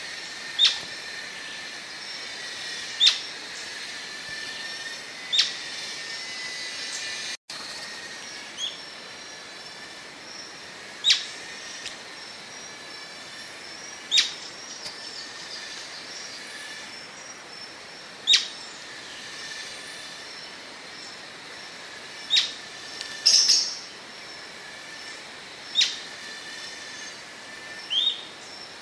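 Atlantic royal flycatcher giving short, sharp, high single calls, one every two to four seconds, once as a quick pair, over steady background noise.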